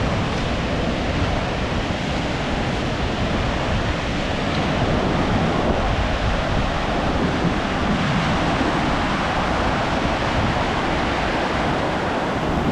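Sea surf washing steadily onto a sandy, shell-strewn beach, with wind rumbling on the microphone.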